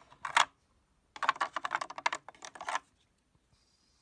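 Small metal sockets of a quarter-inch drive socket set clicking and clattering as they are handled in their case: a short burst of clicks, then a rapid run of clicks lasting about a second and a half.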